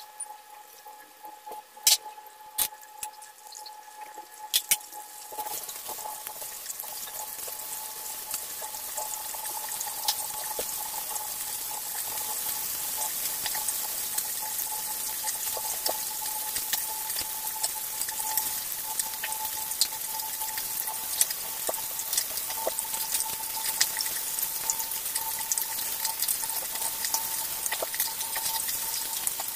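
Fish sizzling in oil and liquid in a pan on a gas burner: a few sharp clicks in the first seconds, then from about five seconds in a steady sizzling hiss with fine pops that slowly grows louder as the pan heats. A faint steady hum runs underneath.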